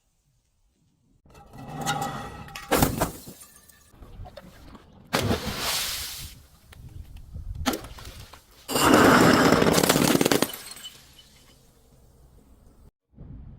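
Glass being smashed and crushed: several separate bursts of shattering and crunching, with sharp cracks in between. The loudest and longest burst comes about nine seconds in.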